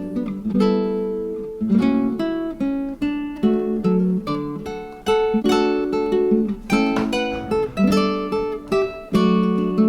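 Background music: strummed and plucked acoustic guitar playing chords.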